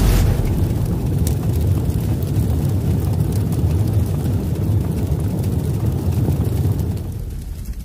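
Intro sound effect: a steady low rumble with no tune or beat, dying away near the end.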